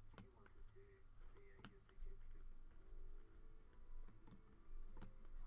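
Faint handling of a stack of Panini Prizm basketball cards being flipped through by hand, with a few sharp clicks as the cards knock against one another.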